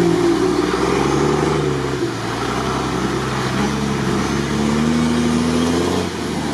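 Off-road vehicle's engine running under load, its pitch rising and falling as the throttle changes.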